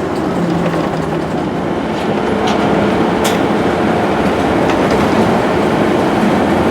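Steady road and engine noise heard from inside a vehicle driving at highway speed, with a few faint ticks or rattles.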